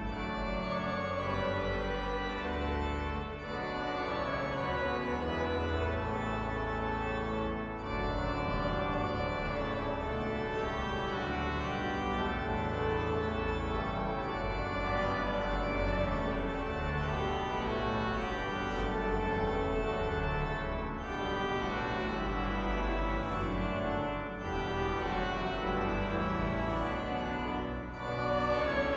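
Organ music playing sustained chords that change every few seconds.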